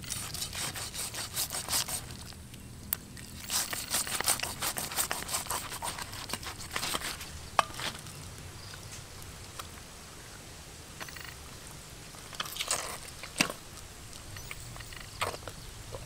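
A knife scraping scales off a whole fish: runs of quick, raspy strokes, a short pause, another run, then scattered single scrapes.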